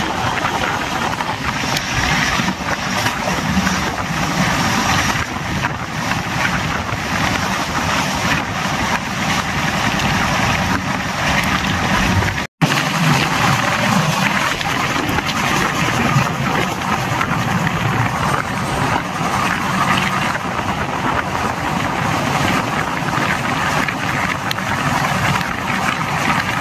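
Express train of LHB coaches running at speed: a steady rumble of wheels on the rails with rushing air. The sound cuts out for an instant about twelve seconds in, then carries on unchanged.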